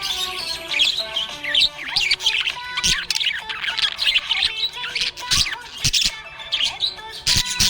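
Small pet parrots chirping and squawking in a rapid, continuous stream of quick high chirps, with a few sharp clicks, over background music.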